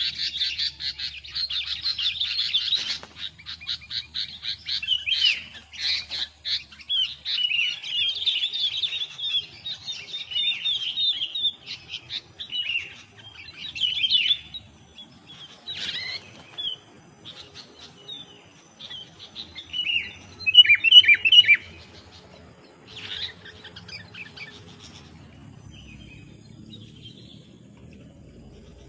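A flock of small birds chirping and chattering, densely and overlapping for the first twelve seconds or so, then thinning to scattered bursts of calls, with one loud cluster of calls about two-thirds of the way through.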